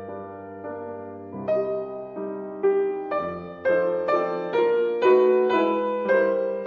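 Piano music: quiet held chords, then from about a second and a half in, struck notes come about twice a second and get louder.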